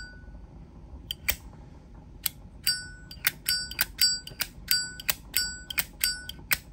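A Zippo windproof lighter's lid being flicked open and snapped shut over and over. Each click is followed by a short, bright ringing ping. A few clicks come about a second in, then they settle into a quick, steady run from about two seconds in.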